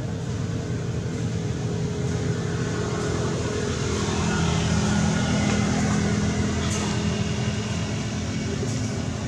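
A motor engine's steady low hum, growing louder about four seconds in and easing off near the end.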